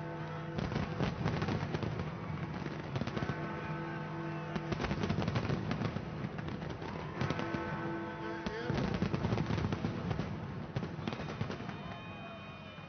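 Fireworks going off in a rapid, dense crackle of bangs, with music behind that holds a chord three times. The crackle eases off near the end.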